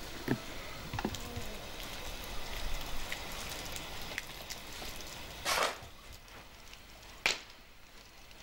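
Small wet clicks and drips as raw potato wedges are handled in a steel bowl of water, followed by two sharper knocks.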